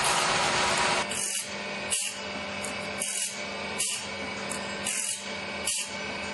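Loud, steady machine noise cuts off about a second in. It gives way to an automatic saw-sharpening machine grinding tooth after tooth: a rhythmic rasp about every 0.6 seconds over a steady motor hum.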